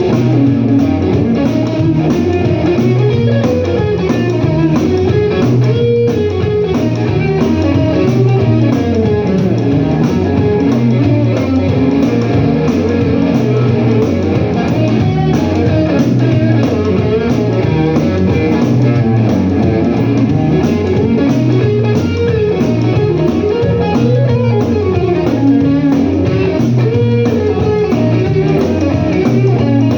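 Blues guitar played live and loud, with no singing: a low riff repeats steadily while a melody line rises and falls above it.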